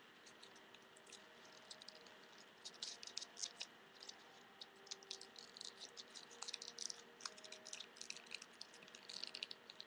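Faint crinkling and clicking of regular paper being handled and creased by hand while the last flap of an origami ninja star is tucked in, in quick irregular bursts that grow busier about two and a half seconds in.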